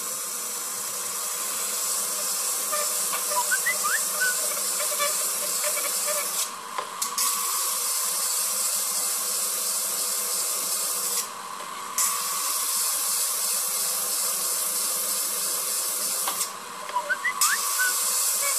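Agate ring stone being ground on the spinning lap disc of a faceting machine: a steady grinding hiss that breaks off briefly three times.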